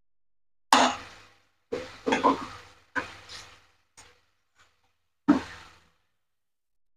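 Wooden spatula scraping and knocking against a nonstick wok while stirring chopped tomatoes in a sticky soy sauce: about six separate strokes, each starting sharply and dying away within half a second, with silence between them.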